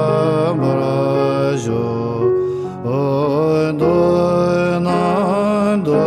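Music: Tibetan Buddhist chant, a man's voice singing long, wavering, ornamented notes over sustained keyboard chords.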